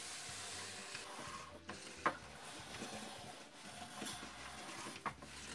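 Faint plastic clicking and rattling from a Mega Bloks toy's wheel mechanism as the wheel is turned to raise and lower the carpet piece, with a sharper click about two seconds in and another near the end.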